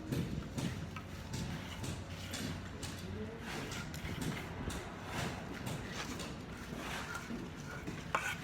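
Irregular light knocks and taps over a low background hum.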